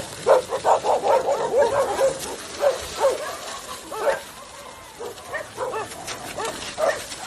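A dog yipping and whining: a quick run of short, high calls for the first couple of seconds, then fewer, spaced-out ones.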